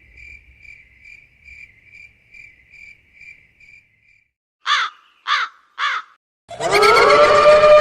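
Sound effects: a cricket chirping faintly and steadily, about two or three chirps a second, for about four seconds, then three crow caws, each arching and falling in pitch. Near the end a loud, sustained pitched tone starts.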